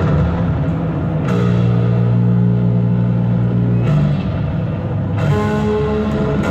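Rock music with guitar, held chords that change every second or two.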